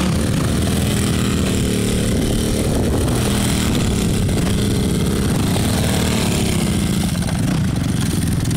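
Quad bike engines running and revving, a child's small youth ATV spinning donuts alongside a Yamaha Raptor 660 sport quad, their pitch rising and falling. The revs ease slightly near the end.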